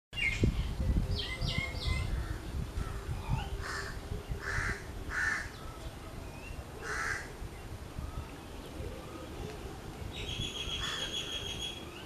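Crow cawing: a few harsh caws, three of them in the middle about a second apart, after some short high calls near the start. A rapid chattering trill comes near the end, over a low rumble.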